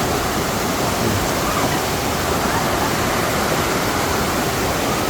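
Valley stream water rushing in a steady, unbroken wash.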